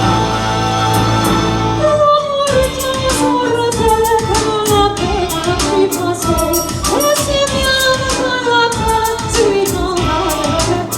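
Music with a singing voice: a held chord, then about two seconds in a voice enters with a sliding, wavering melody over a steady beat.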